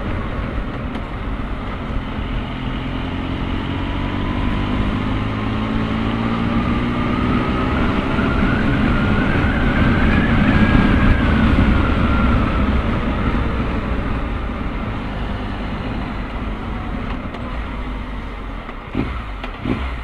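Triumph Tiger Explorer's three-cylinder engine under way on the road, with wind rushing over the bike-mounted microphone. The engine note rises to a peak about halfway through, then falls away as the bike slows, with a couple of knocks near the end.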